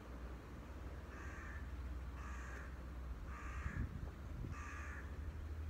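A crow cawing four times, evenly spaced about a second apart.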